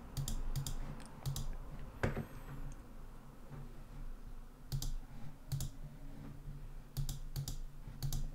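Scattered computer clicks, often two or three close together, with a soft thump about two seconds in.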